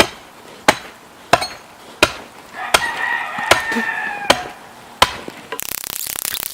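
Sharp strikes chopping at ice, about eight of them at an even pace of one every 0.7 seconds, with a rooster crowing in the middle. Near the end a dense crackling rustle takes over.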